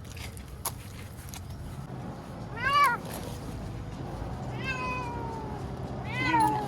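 A cat meowing three times over a low steady hum. Each meow rises and falls; the middle one is longer and slides down in pitch.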